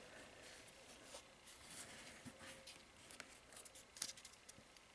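Faint rustling and light ticks of trading cards and booster-pack wrappers being handled, with a slightly sharper tick about three and four seconds in.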